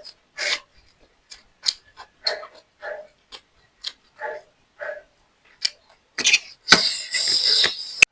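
Close-miked chewing and lip-smacking of mouthfuls of food, short wet mouth sounds about twice a second. A louder, noisy burst about six seconds in lasts nearly two seconds.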